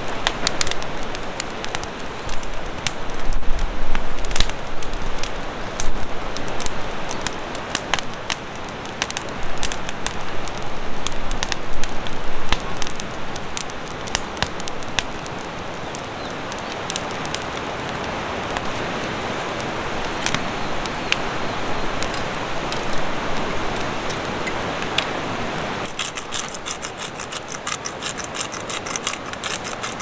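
Wood fire crackling with frequent sharp pops over a steady rushing hiss.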